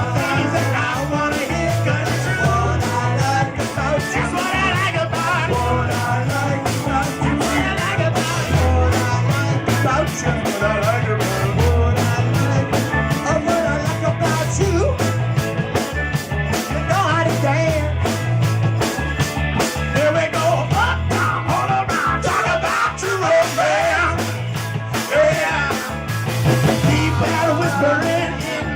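Live rock band playing at full volume. A drum kit keeps a fast, steady beat on the cymbals under a repeating bass line, with wavering lead lines on top.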